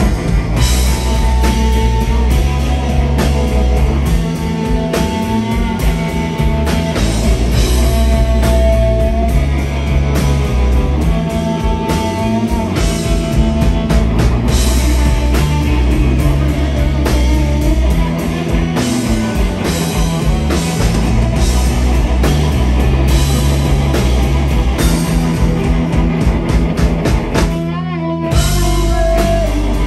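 Live rock band playing loudly: electric guitars, bass and drum kit. The band stops for a moment near the end and then crashes back in.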